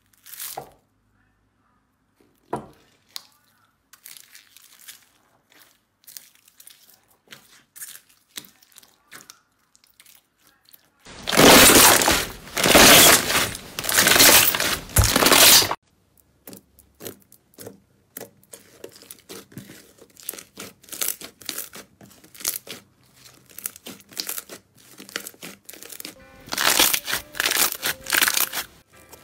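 Hands working slime: small crackles and pops as fingers press into foam-bead slime, then a loud, long run of crackling lasting about five seconds from about eleven seconds in as a yellow slime is stretched and pulled apart, then wet clicks and pops as a clear pink slime is pressed, with a second loud stretch of crackling near the end.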